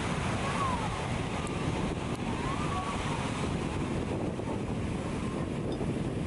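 Ocean surf breaking and washing, with wind noise on the microphone.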